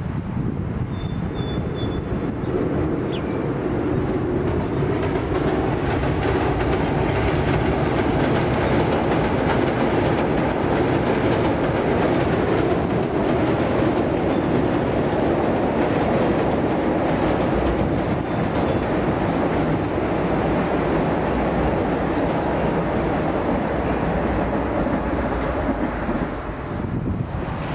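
Metro-North electric passenger train crossing a steel-truss railroad bridge. The steady noise of its wheels on the rails builds over the first few seconds, holds, then falls off near the end.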